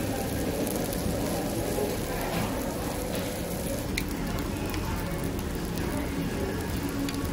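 Meat sizzling steadily on a tabletop barbecue hotplate, with a light click about four seconds in.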